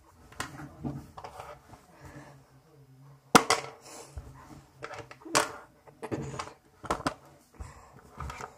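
Plastic action figures handled and knocked against a tabletop: a scattered series of sharp clicks and taps, the loudest about three and a half and five and a half seconds in.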